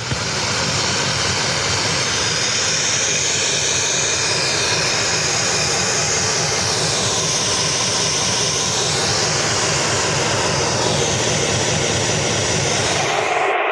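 Shortwave radio noise from a home-built crystal radio set played through loudspeakers: a steady rushing hiss with a high band that slowly wavers up and down in pitch. The uploader takes such signals for HAARP transmissions.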